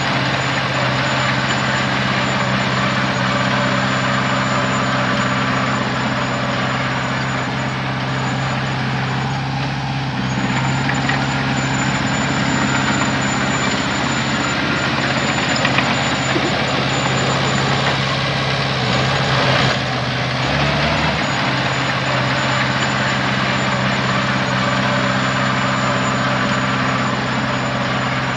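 Heavy diesel engine of earthmoving machinery running steadily at a constant speed, with a thin high whine that comes and goes.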